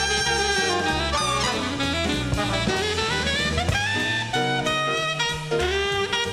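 Big-band jazz played from a vinyl record: saxophones and brass carrying a line over a walking bass and drum kit.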